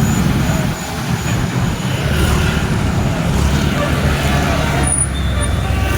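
A bus's diesel engine running close by, a deep steady rumble that grows louder in the second half, with people's voices mixed in.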